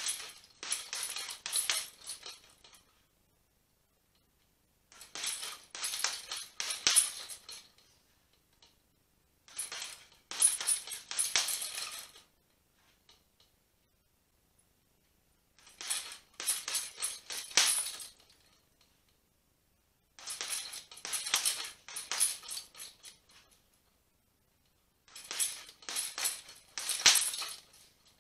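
Gloved punches landing on a heavy bag in repeated combinations, 1-2, 2-3, 3-4 with a slip and a block between the pairs: a burst of several quick hits about every five seconds, six bursts in all, with a pause between each.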